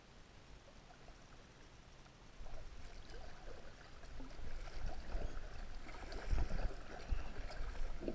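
Lake water lapping and trickling against the plastic hull of a Lifetime Tahoma sit-on-top kayak, getting louder about two and a half seconds in, with irregular low thuds in the second half.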